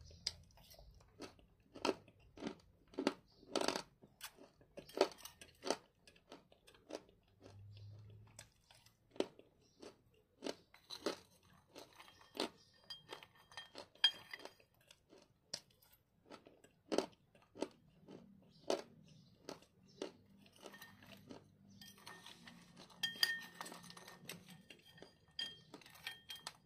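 Close-up crunching and chewing of hard, dry clay chunks, sharp irregular crunches about one to three a second. Now and then a metal spoon scrapes and clinks in the bowl, around the middle and again near the end.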